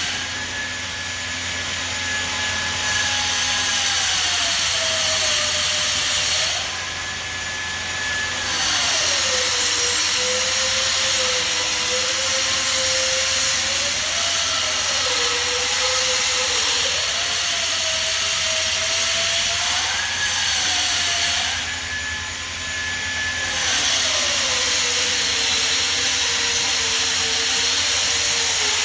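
Denver 5-axis CNC bridge saw cutting 20 mm black granite: a steady loud hiss with a whine that falls and rises in pitch several times over a low hum. The sound eases off briefly three times when the whine is at its highest.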